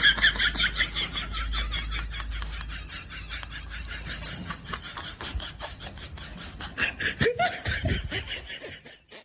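Laughter: a long run of quick, even pulses that tails off near the end.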